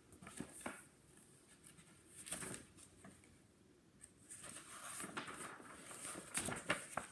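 Faint rustling and soft handling noises of a picture book's paper pages being leafed through and turned, a few short rustles at first and then a longer run of page handling in the last few seconds.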